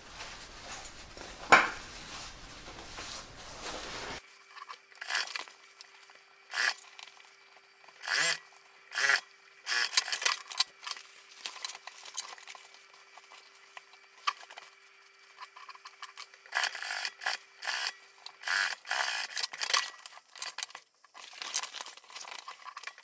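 Canvas fabric rustling as it is folded and handled. Then an industrial sewing machine runs in short, irregular bursts of stitching over a faint steady hum.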